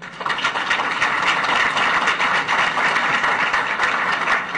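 Audience applauding: a dense, steady clatter of many hands clapping that starts just after the speaker's closing thanks.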